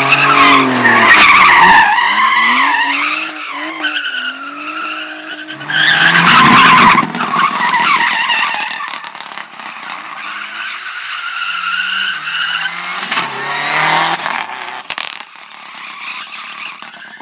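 Rally car engine revving hard, its pitch rising and falling, with tyres skidding. Loudest in the first two seconds and again about six seconds in, then quieter.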